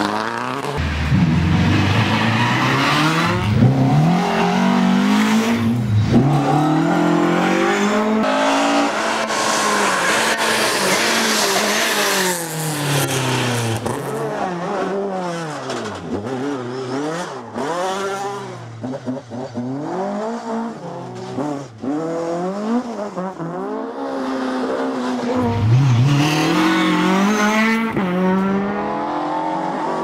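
Rally cars driven flat out one after another, a Subaru Impreza and then a classic Ford Escort among them. Their engines rev hard, the pitch climbing and then dropping at each gear change, louder as each car passes close.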